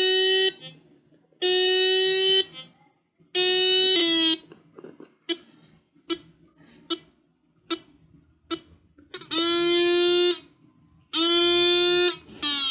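Electronic alarm tones from a seven-transistor alarm circuit. First come three buzzy beeps about a second long, each a steady tone; the third drops in pitch at its end. Then a few seconds of scattered clicks, then longer beeps that swoop down in pitch as each one starts.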